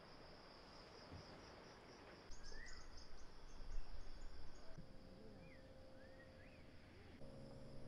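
Faint outdoor ambience: a steady high insect drone with a few short bird calls. A low steady hum comes in during the second half.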